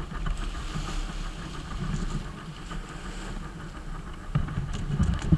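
Water rushing and slapping against the hull of a Kyosho Seawind RC sailboat running through rough chop, with wind buffeting the onboard microphone. A few sharp knocks of waves striking the hull come in the last second or so, the loudest at the very end.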